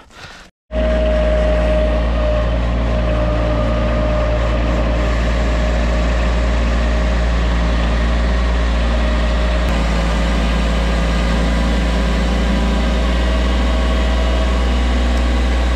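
Skid steer loader's engine idling steadily, heard from the operator's seat. It starts abruptly less than a second in.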